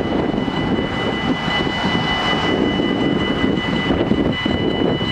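Level-crossing warning bells ringing steadily as two held high tones, over a loud continuous rumbling noise.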